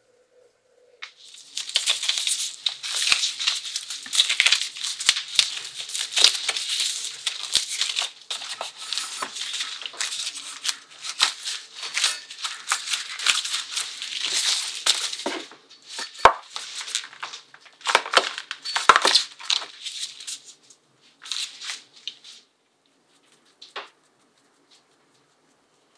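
Disposable plastic gloves crinkling and rustling as hands press sticky marshmallow nougat mixture into a square metal mould: a dense crackle full of small clicks. It stops about three-quarters of the way through, and a few faint clicks follow.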